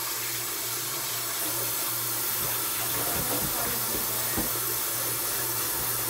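Kitchen tap running steadily into the sink while dishes are washed, with a few light knocks of dishware about three to four seconds in.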